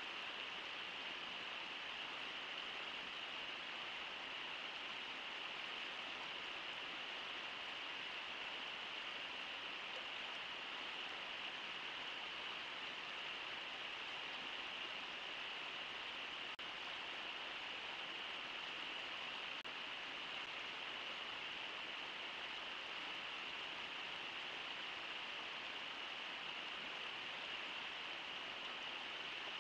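Steady rushing of river water: an even hiss that does not change, with no splashes or other distinct sounds standing out.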